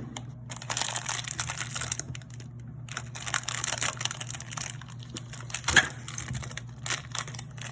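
Plastic packaging crinkling and rustling as it is handled and unwrapped, with irregular sharp clicks and crackles and one louder click just before six seconds in, over a steady low hum.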